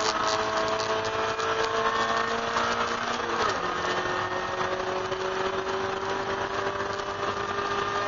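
1999 Mazda Miata race car's 1.8-litre four-cylinder engine heard from inside the cabin, pulling hard at full throttle with its pitch slowly rising. About three and a half seconds in the pitch drops sharply, an upshift, then climbs again, over steady wind and road noise.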